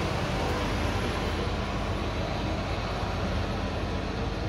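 Steady rumble of road traffic, an even noise with a strong low end and no separate events.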